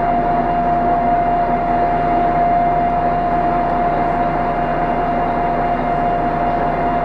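Ikarus 260 city bus's diesel engine idling, heard from inside the cabin as a steady low running hum with a constant high whine on top.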